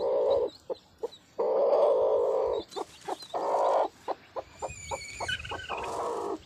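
Broody country hen on her nest of hatching eggs giving several long, harsh growls. Newly hatched chicks peep thinly in between.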